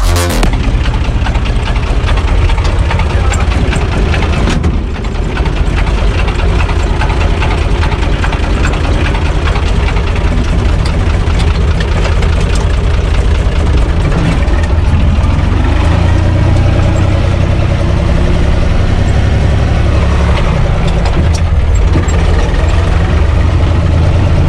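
UTB 445 DT 4x4 tractor's diesel engine running steadily under way, heard from inside the tractor's cab.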